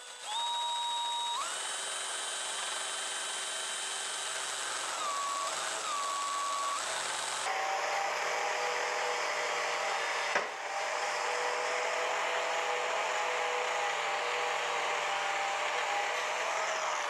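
Cordless drill running into the steel frame rail of a 1972 Chevrolet C10 pickup, its motor whine stepping up in pitch about a second in and dipping briefly partway through. At about seven and a half seconds it gives way to an angle grinder cutting the frame steel, a steady whine over a rasping hiss, with one sharp click a few seconds later; near the end the grinder's pitch falls as it winds down.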